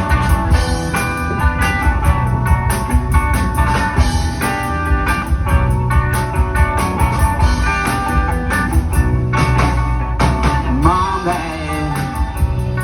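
Rock band playing the instrumental intro of a song, with guitar, bass and a steady drum beat. A melodic line with bending pitch enters about eleven seconds in.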